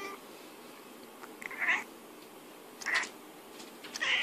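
Domestic cat meowing: three short, high meows, about a second apart.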